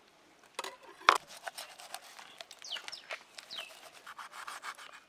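Knife blade scraping and slicing along the backbone of a large bhetki (barramundi) as a fillet is cut free, in many short rasping strokes. A sharp click about a second in.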